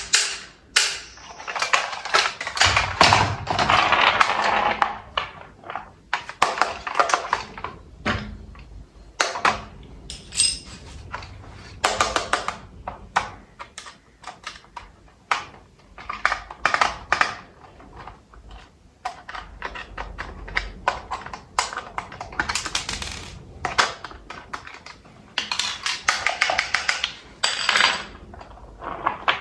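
Packaging being handled and opened: a steady run of irregular clicks, taps and knocks, with stretches of rustling.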